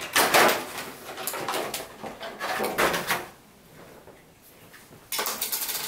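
Clear plastic toy packaging crinkling and rustling as it is handled, in several bursts. A quiet stretch of about a second and a half comes before a last loud rustle near the end.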